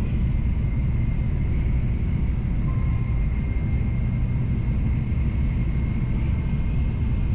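Nozomi Shinkansen bullet train running at speed, heard from inside the passenger cabin: a steady low rumble with a faint high, steady tone over it.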